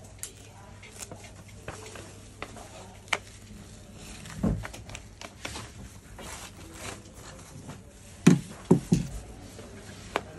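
Plastic-gloved hands and a thin white backlight sheet rustling and crinkling as a laptop LCD panel's layers are handled, with scattered light clicks and taps. A soft thump about four and a half seconds in and three louder thumps between eight and nine seconds in.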